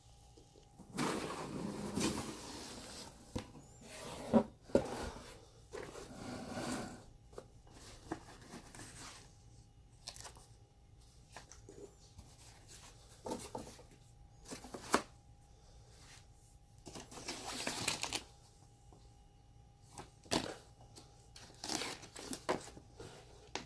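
Unboxing handling noises: packaging rustling, with scattered sharp clicks and knocks of parts being picked up and set down. The loudest are two knocks about four and a half seconds in.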